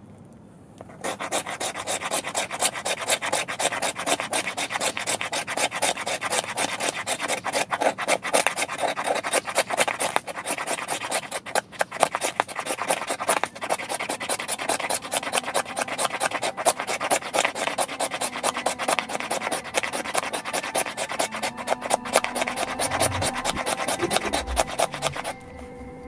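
A knife blade scraping a wooden stick in rapid, even strokes, rasping off fine shavings for fire tinder. The scraping starts about a second in and stops just before the end.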